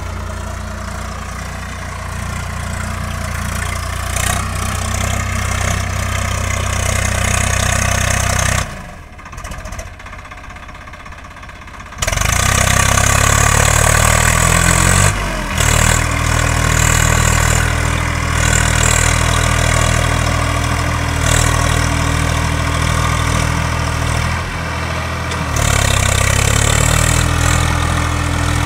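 Swaraj 4WD tractor's diesel engine running under load as it pulls a heavily loaded straw trolley through deep mud. The engine note drops away for about three seconds a third of the way in, then comes back louder with a rise in revs, and dips and climbs again near the end.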